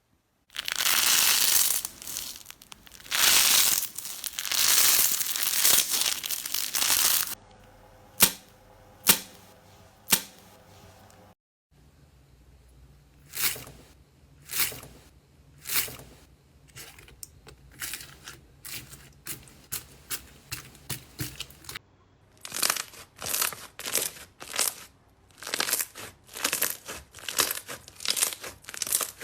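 Slime being pressed and poked by hand: a long crinkly, tearing rustle for about seven seconds, then a series of separate sharp pops, and near the end a quick run of crackles, typical of crunchy slime.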